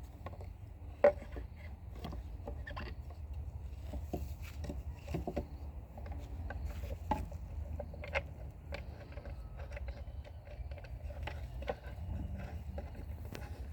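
Scattered knocks, clicks and scrapes of equipment being handled, with one sharp knock about a second in, over a steady low rumble.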